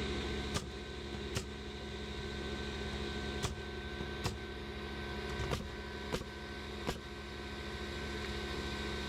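A motor or small engine running steadily with a constant hum. About seven sharp knocks are scattered through it, with none in the last couple of seconds.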